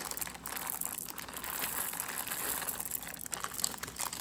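Crinkling of a plastic bag of chocolate chips being handled and poured out, a steady dense rustle with many small crackles.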